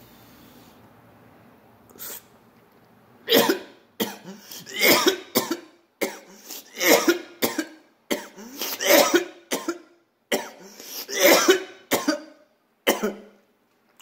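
A man's coughing fit: a quick run of about a dozen harsh coughs, starting about three seconds in, brought on by a hit of smoke from a pipe of cannabis shatter.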